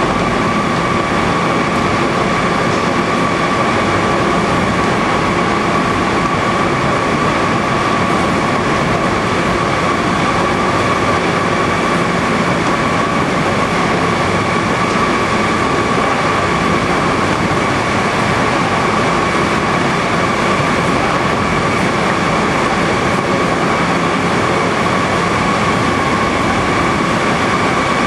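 Fruit-processing line machinery running steadily: stainless-steel conveyors and inclined fruit elevators carrying mangoes, a dense, even mechanical din with a constant high whine over it.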